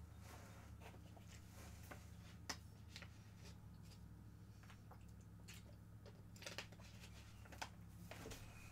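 Near silence: room tone with a low steady hum and a few faint scattered clicks.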